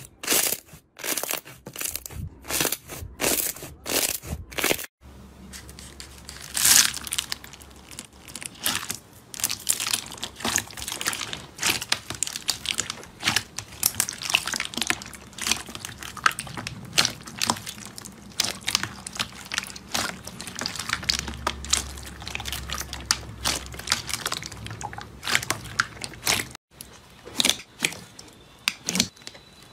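Hands squishing slime, full of sharp sticky pops and clicks. For most of the stretch it is clear slime packed with foam beads, crackling and crunching densely as fingers press and knead through it; before and after, softer slime gives louder, more spaced-out pops.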